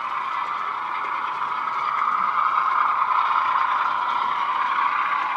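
Sound-fitted model Class 35 Hymek diesel locomotive's DCC decoder playing its diesel engine sound through the model's small bass-enhanced speaker. It grows steadily louder as the model approaches.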